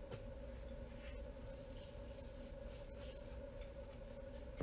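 Faint rubbing and patting of hands working a salt and pepper mixture into raw venison steaks, with soft scratchy sounds every second or so over a steady hum.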